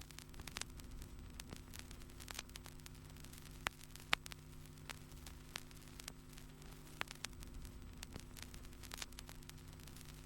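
Faint vinyl record surface noise: a steady low hum with light hiss and scattered crackles and pops, before the music comes in.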